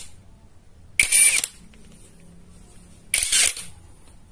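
Dagmara D3301 brushless cordless impact wrench run in two short bursts of about half a second each, about a second in and about three seconds in.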